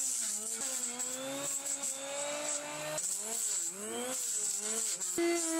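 Corded electric hand planer running and cutting along a log to flatten it, its motor pitch dipping and recovering over and over as the blades bite into the wood, with a high hiss from the cutter head.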